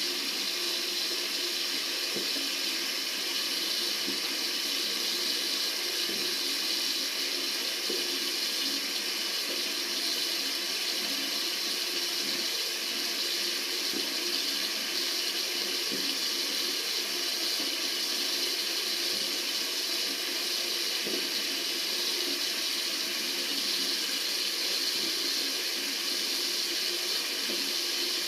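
Tap water running in a steady, unbroken stream, with an even hiss.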